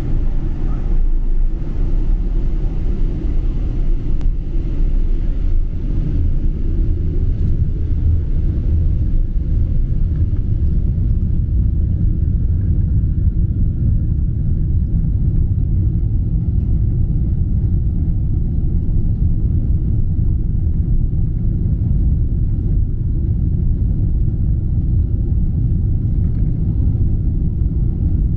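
Steady low rumble inside a jet airliner's cabin as the plane moves on the ground, with engine and rolling noise. A faint high hiss thins out about a third of the way through.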